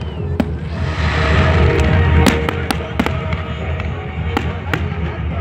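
Fireworks display: a string of sharp bangs and crackles, with a denser rush of crackling from about one to two and a half seconds in, over music playing in the background.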